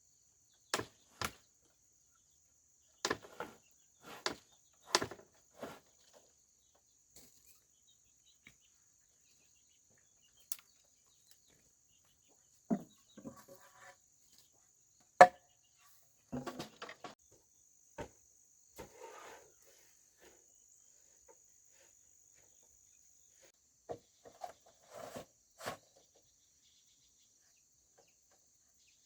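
Steady high trill of insects such as crickets, under irregular knocks, taps and clatters of hand building work. The sharpest knock comes about halfway through.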